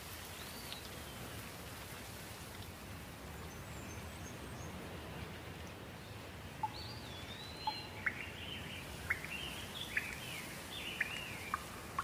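Steady rain falling on foliage. In the second half a bird calls over it again and again with short rising and falling chirps and sharp notes.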